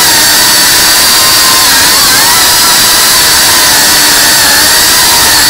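FPV quadcopter's motors and propellers whining loudly and steadily, the pitch wavering a little as the throttle shifts.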